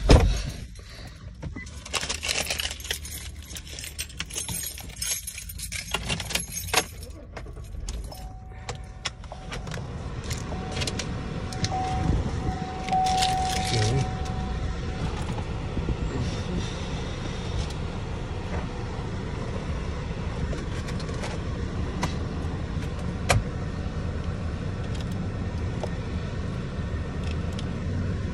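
Keys jangling and clicking as things are handled inside a car for the first several seconds. Then a steady low hum from the Cadillac SRX's running engine, with a faint steady tone for several seconds.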